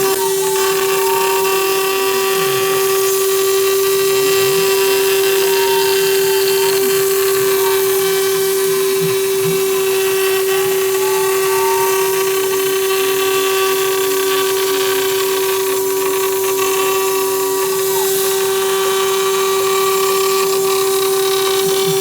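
CNC router spindle at 24,000 RPM milling polycarbonate with a 1/4 in end mill, a loud steady high tone over cutting hiss. Fainter whines rise and fall as the machine changes direction.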